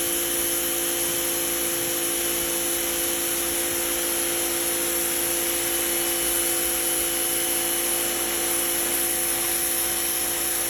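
Suyncll electric pressure washer running steadily, its motor and pump giving a constant hum with a few steady tones over the hiss of the water jet, sprayed up close onto a dirty table.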